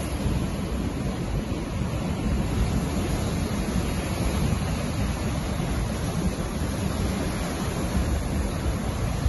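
Ocean surf: a steady rush of waves breaking on the reef and washing up the sand, with wind buffeting the microphone.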